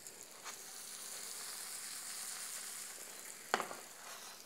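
Sliced onions sizzling faintly in a frying pan with a little oil, a soft hiss that swells and fades, as they start to stew. A light click about half a second in and a sharper, louder clack about three and a half seconds in.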